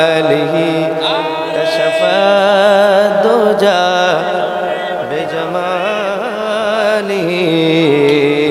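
A man singing a naat solo into a microphone, drawing out long ornamented notes that waver and glide between pitches.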